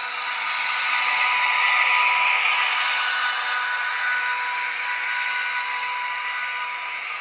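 Model electric train running close by on its track, its motor and wheels making a steady whir with a faint whine. It grows louder to a peak about two seconds in as the locomotive passes, then slowly fades as the train runs on into the station.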